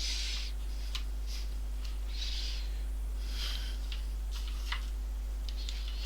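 A steady low electrical hum, with several soft breaths close to the microphone and a few faint clicks of multimeter probes touching the circuit board.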